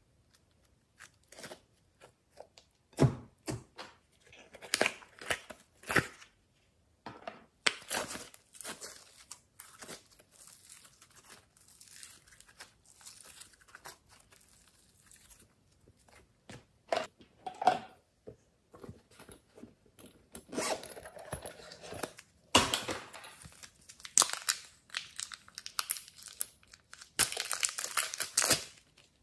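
Hands stretching, folding and pressing glossy slime: irregular sticky crackles, snaps and squishes in uneven bursts. Near the end, a longer run of crinkling as soft clay is pushed out of a thin plastic pouch.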